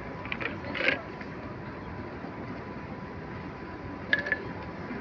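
Airport terminal background noise: a steady murmur and hum with a faint constant high tone. It is broken by two brief sharp sounds, the louder just under a second in and another about four seconds in.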